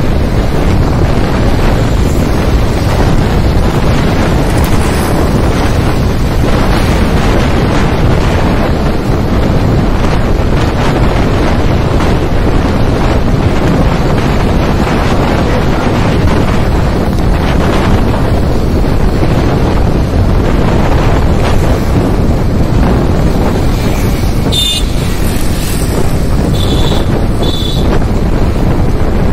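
Wind buffeting the microphone of a moving vehicle, with road and traffic noise underneath, steady throughout. Near the end, three short high beeps cut through.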